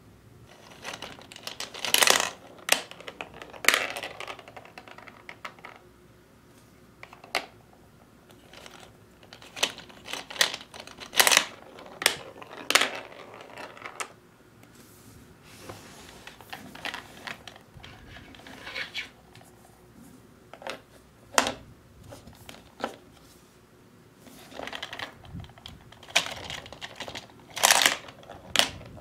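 Small plastic gumballs clattering down a toy gumball machine's plastic spiral ramps and dropping into its plastic base, heard as irregular clusters of sharp clicks and knocks.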